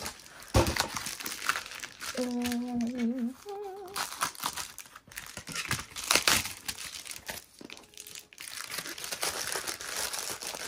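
Plastic bubble mailer crinkling and rustling as it is handled on a desk, with a woman briefly humming a few wavering notes about two seconds in.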